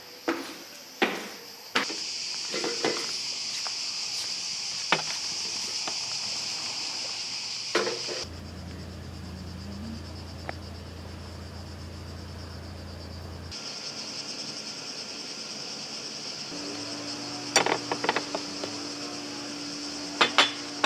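Cicadas buzzing steadily on a high pitch, with scattered clicks and knocks early on. For several seconds in the middle the buzz drops out and a low steady rumble takes its place. The buzz then returns, with a run of clinks near the end.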